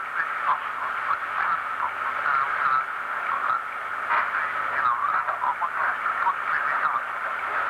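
Muffled, distorted voice over a telephone line, squeezed into a thin, tinny band with steady hiss behind it and the words not made out.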